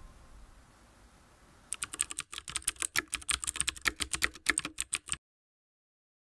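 Rapid computer-keyboard typing clicks, an edited-in sound effect for text being typed onto the screen. A faint tail of music fades out first; the clicks start about two seconds in and cut off abruptly about five seconds in.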